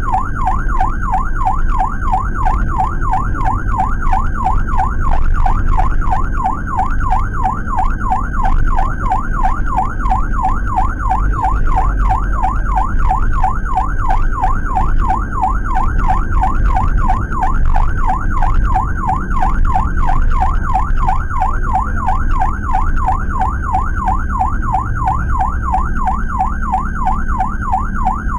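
Ambulance siren on a Suzuki APV, heard from inside the cabin: a fast warble rising and falling rapidly and evenly without a break, over the van's engine and road noise.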